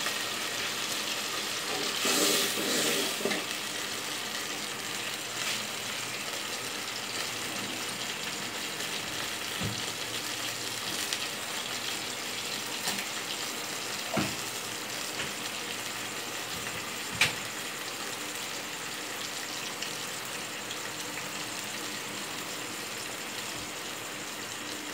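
Spiced tomato and green-chilli broth boiling and sizzling steadily in a pot on a gas burner as its water cooks down, with a few brief light knocks.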